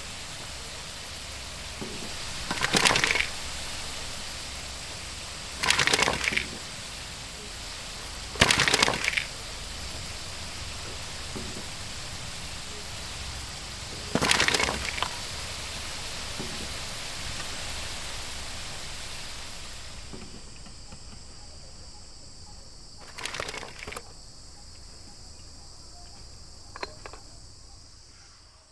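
Eggplant pakoras frying in a kadai of hot oil with a steady sizzle, which fades about 20 seconds in. Five loud clatters, each brief, come from the tongs and wire skimmer hitting the pan and the steel tray as the fried pieces are lifted out.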